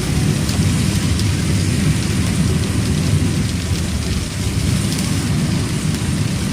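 Heavy rain beating on a car, heard from inside the cabin, over the steady low rumble of the car on the move.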